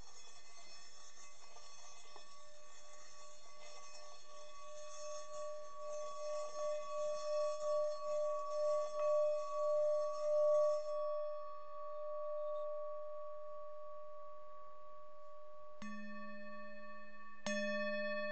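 Singing bowls ringing. A struck bowl's long tone swells and pulses slowly as it sustains, then two more strikes near the end, under two seconds apart, bring in a lower ringing tone.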